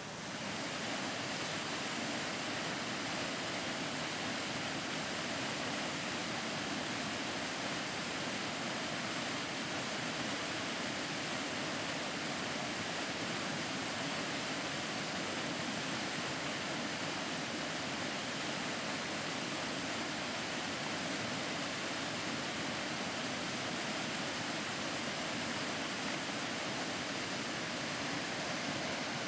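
Mountain river rushing over rocks in white-water rapids and small cascades: a steady, even rush of water, growing a little louder in the first second and then holding level.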